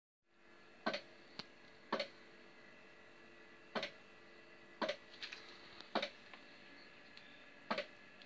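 Short sharp clicks, each with a slight chirp to it, repeating about every one to two seconds over a faint steady electronic hum from a powered-up radio-controlled bait boat.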